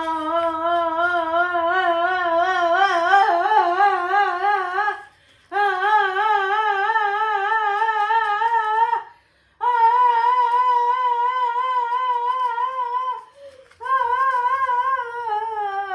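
A voice humming four long held notes, each wobbling slowly up and down in pitch, with short breaks between them; the last note slides down in pitch at the end.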